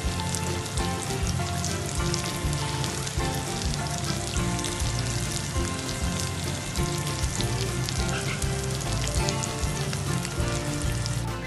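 Beef steaks pan-searing in hot fat with garlic cloves, a steady sizzle full of fine crackles.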